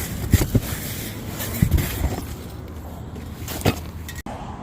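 A few sharp knocks and clunks of brake parts being handled and fitted, as a new brake rotor goes onto the truck's front hub.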